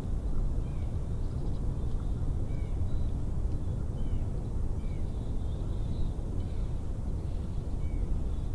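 Low, uneven rumble of wind buffeting the nest camera's microphone, with faint bird chirps heard about once a second.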